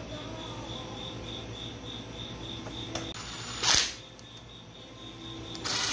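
A cordless power driver runs briefly, about three and a half seconds in, spinning in a brake bracket bolt on an ATV's front knuckle. Behind it a steady high chirp repeats about five times a second.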